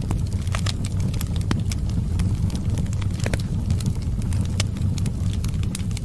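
Wood fire burning, with irregular sharp crackles and pops over a steady low rumble.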